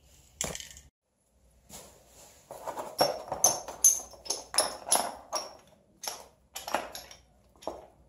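A short hiss of an aerosol spray-paint can near the start. Then a run of sharp clinks and knocks, several a second, as freshly painted iron pipe fittings (floor flanges, caps and elbows) are picked up, turned over and set down on cardboard.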